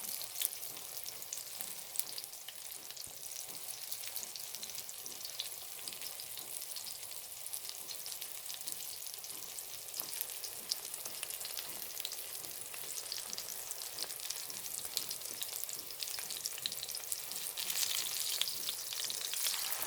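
Bologna slices frying in hot oil in a pan: a steady sizzle full of fine crackling pops, growing louder near the end.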